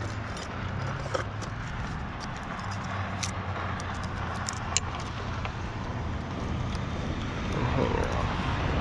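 Steady rumble of a distant engine, growing a little louder near the end, with scattered small clicks and rattles from fiber drop cable and clamp hardware being handled.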